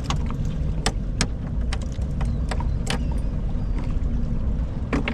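Steady low rumble of wind buffeting the microphone on an open boat, with a faint steady hum under it and a few sharp light clicks scattered through.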